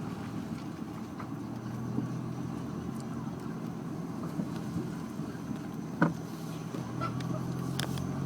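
Honda S2000's four-cylinder engine running with a steady low hum, over scattered light clicks and one sharp knock about six seconds in: the weird noise from the rear passenger side.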